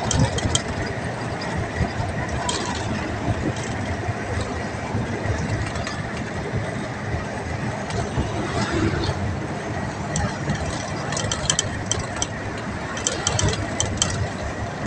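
Steady running noise of a vehicle crossing a bridge, heard from on board, with clusters of short rattling clicks in the second half.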